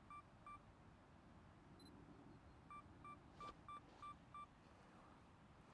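Faint electronic beeps from a DSLR camera on a tripod set for a 10-second long exposure. There are two short beeps near the start and one higher beep about two seconds in, then a run of six about a third of a second apart around the middle, with a single click among them.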